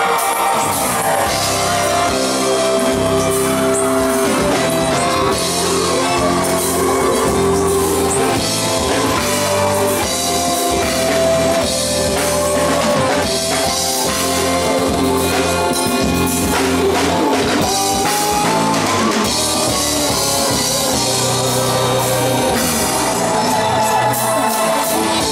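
A live praise band playing on stage: drum kit keeping a steady beat under electric bass and keyboards.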